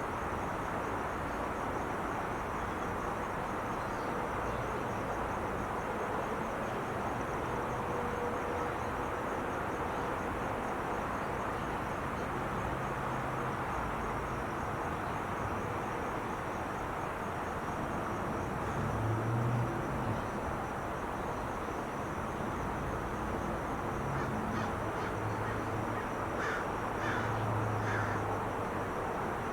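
Steady roar of Interstate 5 freeway traffic, swelling twice as heavier vehicles pass. Over it, a faint high trill runs throughout, and a bird calls three times near the end.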